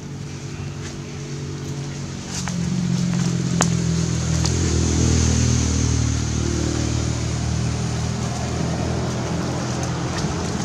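A motor vehicle engine running steadily, growing louder about two seconds in and staying loud. A few sharp clicks are heard over it.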